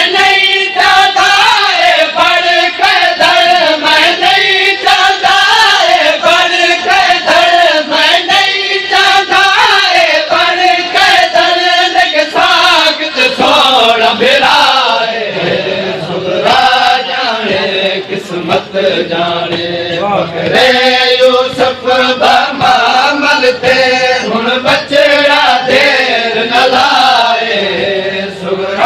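A group of men's voices chants a noha, a Shia lament, in unison, over a steady beat of sharp slaps. About halfway through, the chant's melody shifts into a new phrase.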